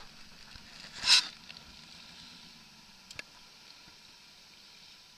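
Water splashing briefly once, about a second in, against a small inflatable boat's tube, over a faint steady wash of water. A small sharp click follows a couple of seconds later.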